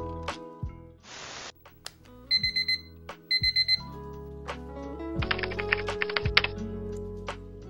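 An electronic alarm beeping in two quick groups of rapid high beeps, over soft background music. A short run of clicks follows.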